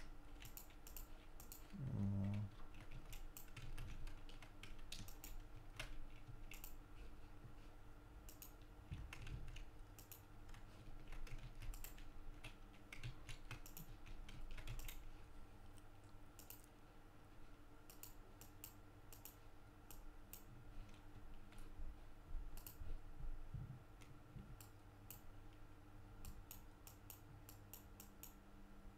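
Scattered, irregular clicks of a computer mouse and keyboard over a faint steady electrical hum, with one dull low thump about two seconds in.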